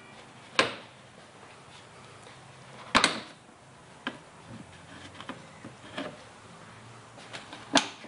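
Plastic cowl panel clips on a 2011 Scion tC snapping loose as the panel is pulled up by hand: a handful of sharp plastic clicks and snaps, the loudest about three seconds in and another sharp one near the end, with softer creaks between.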